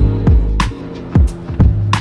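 Background music with a drum beat over a deep, steady bass line.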